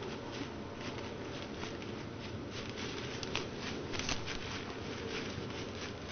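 Quiet woods with a steady hiss and scattered soft rustles and crackles of movement in dry leaf litter, a few slightly sharper ones a little past the middle.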